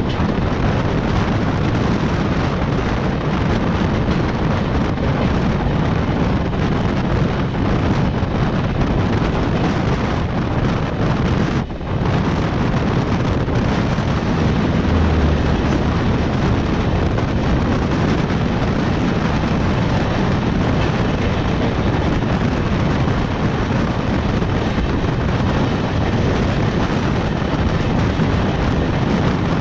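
Loud, steady rumble of passenger trains with LHB coaches running past, mixed with wind buffeting the microphone. It drops briefly about twelve seconds in.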